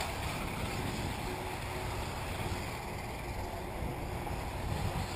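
Steady low rumble and hiss of wind on the microphone, with a faint on-and-off whine from electric 1/8-scale RC buggies out on the track.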